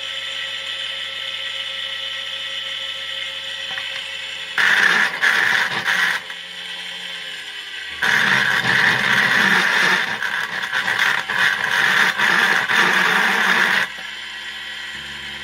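A small motor of a mini tabletop grinder runs at a steady whine. Twice it bites into work with a loud, rough grinding: briefly about four and a half seconds in, then for about six seconds from about eight seconds in. The grinding is typical of nickel strip remnants being ground off the ends of 18650 lithium cells.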